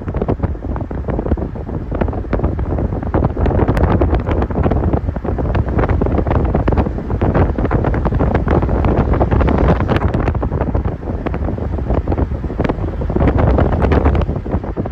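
Heavy wind buffeting the phone's microphone from a moving vehicle, with a steady low road rumble underneath and many short crackles from the gusts.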